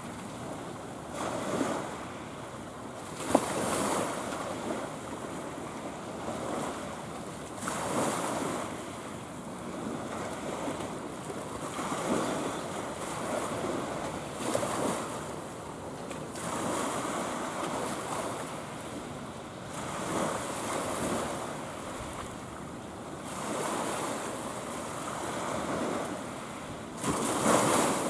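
Small waves washing in, swelling and fading every few seconds, with wind buffeting the microphone. There is one sharp click about three seconds in.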